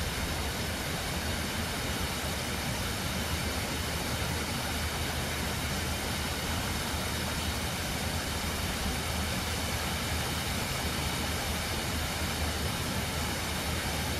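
Tempesta Falls, a cascading waterfall, rushing with a steady, unbroken roar of falling water.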